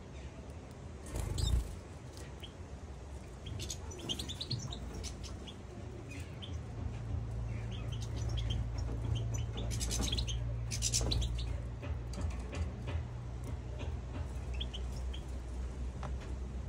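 Caged finches, European goldfinches with a siskin, giving short scattered high chirps and twitters, busiest near the middle with a quick dense burst. A thump about a second and a half in, and a steady low hum underneath from about six seconds in.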